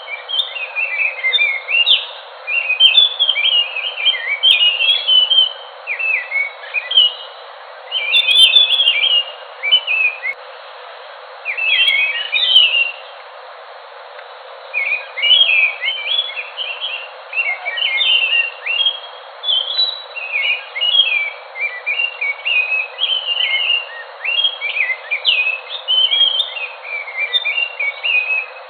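A Geokichla ground thrush (anis) singing: rapid runs of varied whistled and twittering notes in bursts of a second or two, with a pause of about four seconds near the middle, over a steady hiss.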